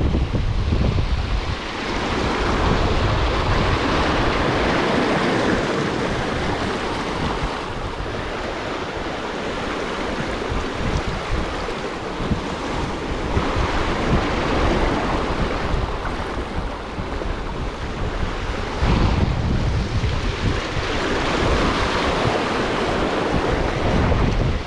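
Sea waves washing and splashing in slow surges that swell and ease, with wind buffeting the microphone in low rumbles at the start and again about three-quarters through.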